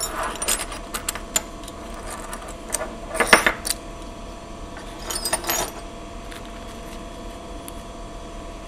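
Small loose metal parts, screws and pins, clinking and rattling as they are handled, in four short bursts; the loudest comes about three seconds in, and the clinking stops after about six seconds.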